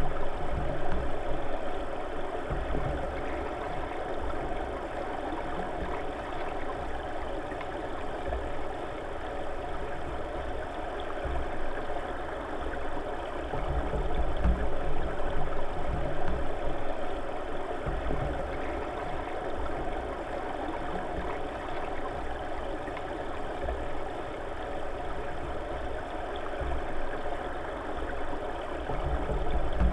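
Steady underwater rush of river current, heard through a submerged camera housing, with an uneven low rumble and a faint steady hum.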